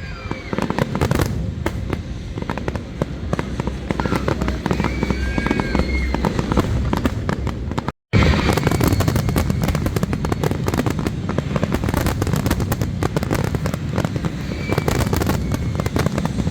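Fireworks display: a dense, continuous run of crackles and bangs, with voices underneath. The sound cuts out completely for an instant about eight seconds in.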